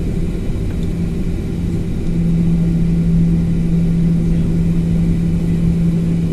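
Airliner jet engines running at taxi power, heard from inside the passenger cabin: a steady low rumble with a droning hum that grows louder about two seconds in.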